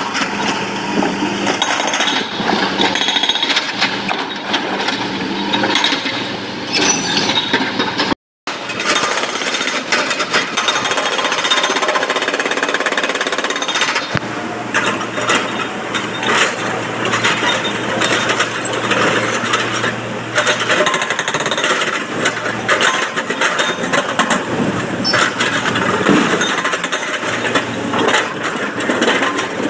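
Hydraulic breaker hammer on an excavator pounding rock in rapid, continuous blows, with an excavator's diesel engine running steadily underneath. The sound cuts out completely for a moment about eight seconds in.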